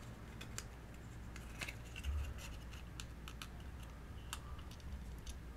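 Aluminium foil being crinkled and pressed down over a small circuit board as a heat shield: scattered, irregular crackling clicks over a low steady hum.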